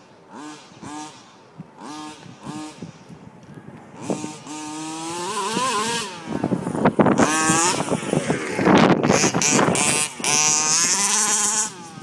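Engine of a 1/5-scale KM 002 TX RC buggy: short throttle blips about twice a second, then revving up and down as the buggy drives, loudest from about seven seconds in.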